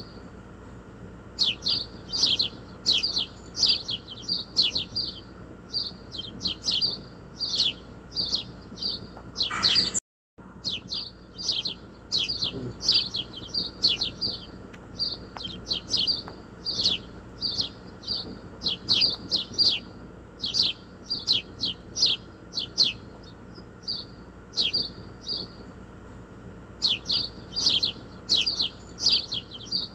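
Graphite pencil scratching on paper in quick, short, repeated strokes as hair strands are sketched, two or three strokes a second in irregular runs. The sound drops out briefly about a third of the way in.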